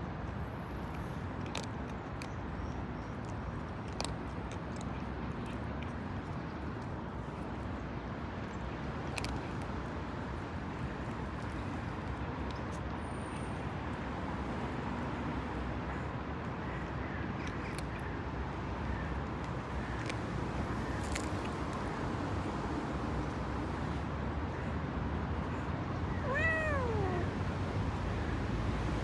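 A cat meows once near the end, a short call that falls in pitch, over a steady background hum of street traffic.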